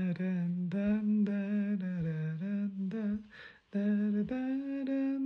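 A single voice humming a slow tune in long held notes. It breaks off for about a second midway, then comes back on a higher held note.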